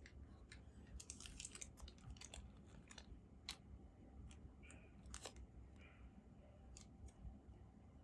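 Faint, irregular clicks and light scratchy rustles from handling a small mechanical macropad and its plastic parts or packaging, with no steady rhythm of typing.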